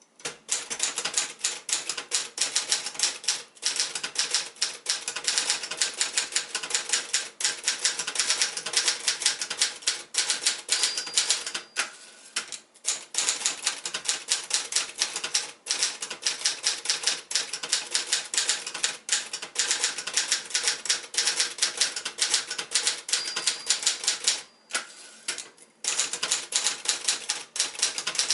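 1978 Adler J5 portable manual typewriter being typed on: a fast, continuous run of key and typebar strikes, with two brief pauses in the typing.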